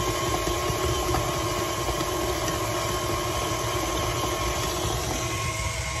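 Electric mixer running steadily at speed, a constant motor whine over a low rumble, as it creams butter and sugar together.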